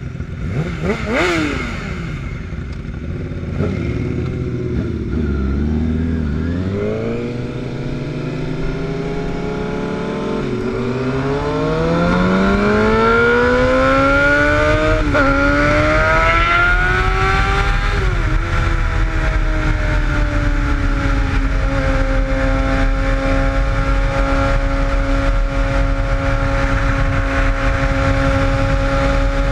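Sport motorcycle engine, a quick throttle blip about a second in, then pulling away and accelerating up through the gears. Its pitch climbs and drops back at three upshifts, then holds steady at cruising speed, with wind noise rushing over the microphone.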